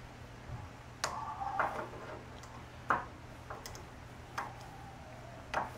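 Irregular light clicks and taps of a small hand tool working inside a turbo diverter valve's body while it is being taken apart, about six in all, the loudest about three seconds in.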